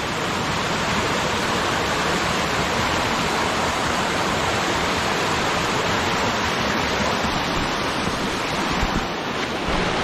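Mountain stream rushing steadily over boulders and down a small rocky cascade, a constant even rushing of water.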